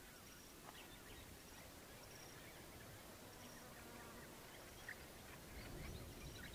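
Faint outdoor background with scattered short, high bird chirps and a faint high note repeating about once a second.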